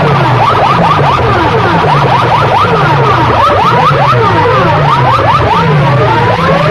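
Stacks of horn loudspeakers blaring siren-like electronic sweeps at full volume, many pitch glides a second overlapping over a pulsing low beat. From about three and a half seconds in, rising and falling sweeps cross each other.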